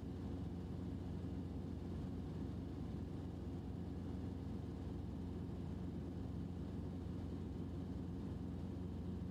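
Steady low drone of a helicopter's engine and rotor heard from inside the cabin in flight, with a few steady low hum tones and no change in pitch or level.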